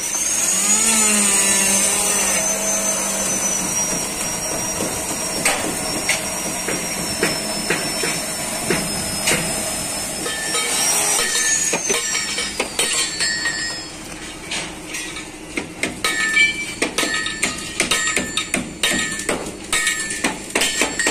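A hand-held electric power tool starts up with a rising whine and runs steadily for about twelve seconds, then winds down. After that comes a run of irregular hammer knocks and metallic taps, some of them ringing briefly.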